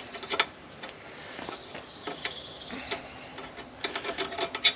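Quick metallic clicks and ticks of a hand tool working the rear Allen bolts of a motorcycle grab-rail bracket. They come in two runs, one right at the start and a longer one near the end, which holds the loudest click.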